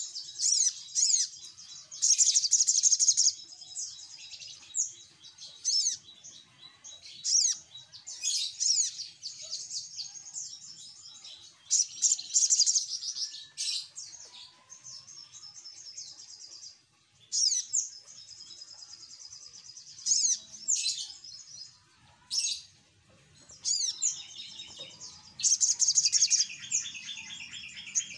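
Olive-backed sunbird (sogok ontong) singing excitedly: bursts of rapid, high chirping and trills with sharp single chips between them. It is the kind of lively 'ribut' song played as a lure to prompt other caged birds to call.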